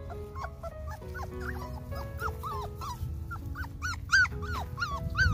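Several young puppies whining in a rapid run of short, high yelps that fall in pitch at the end. The yelps come faster and louder toward the end.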